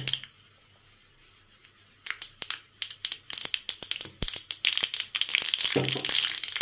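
Mustard and cumin seeds popping in hot oil in a small kadhai. The sharp pops start about two seconds in and quickly thicken into a steady crackle as the seeds splutter.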